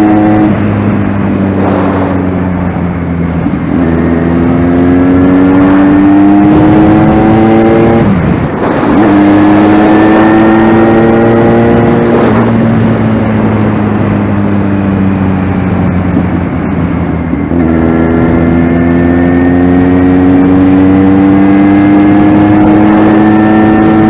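Kawasaki Z1000R inline-four engine through a de-catted aftermarket exhaust, ridden in turn: the engine note climbs under throttle, breaks at gear changes, and falls away as the rider rolls off to decelerate, several times over. The ride is a deceleration test for exhaust popping after the bike's AIS (air induction system) has been blocked.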